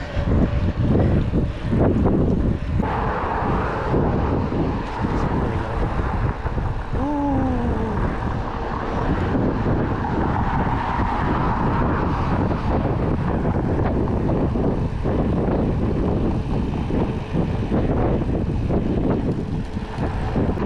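Continuous wind and road rumble on the rider's microphone while riding. A thin steady whine comes in a few seconds in and lasts several seconds, with a short falling tone about seven seconds in.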